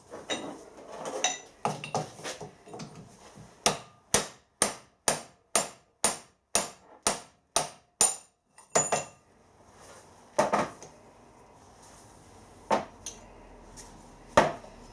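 Hammer blows on a drift, driving a worn roller bearing out of the end of a lathe live centre held in a vise. A short clatter of metal parts being set up comes first, then a steady run of about a dozen sharp metallic strikes, roughly two a second, then four more, spaced further apart.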